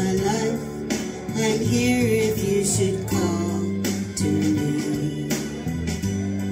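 A karaoke singer singing over a recorded backing track with guitar.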